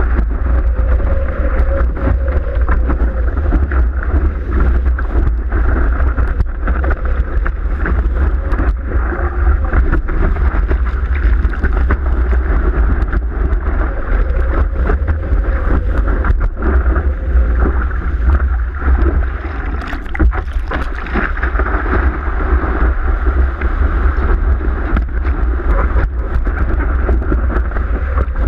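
Surfboard cutting through a breaking wave: water rushing and splashing along the board, with heavy wind buffeting on a board-mounted GoPro's microphone and many short crackles of spray.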